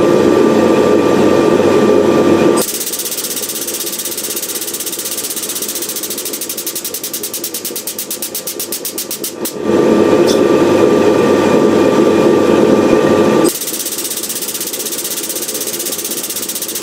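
Air-driven pump of an air-over-hydraulic 20-ton bottle jack running in two loud spells of about three to four seconds each, one ending a few seconds in and one starting near the middle, as it drives the press ram down onto hot steel. Between the spells a quieter, fast, even pulsing runs on.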